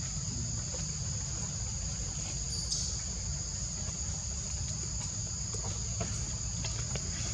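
Steady, high-pitched drone of forest insects, two unbroken tones holding constant, over a low rumble.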